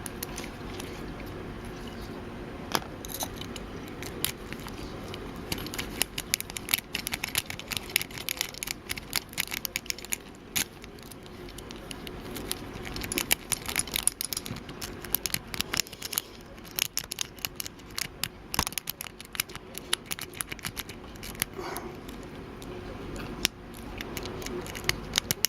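A BEST padlock's interchangeable core being picked, with many light, irregular metallic clicks and ticks from the pick and tension wrench working the pins.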